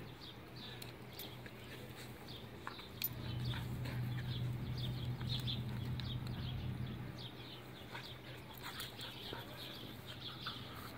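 Heeler-shepherd cross dogs play-wrestling, with a low rumbling growl that grows louder from about three to seven seconds in. Birds chirp faintly in the background.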